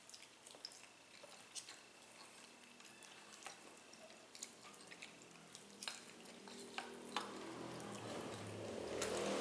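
Scattered light clicks and taps of eating and handling food at the table, with a louder noisy stretch building near the end.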